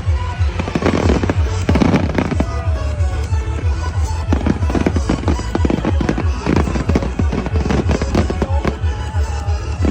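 Aerial fireworks bursting and crackling in rapid clusters, shot after shot, with music playing underneath.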